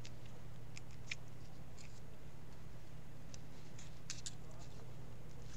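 Light, scattered clicks and ticks of small hand work on a laptop adapter's cable, a few a second at irregular spacing, over a steady low hum.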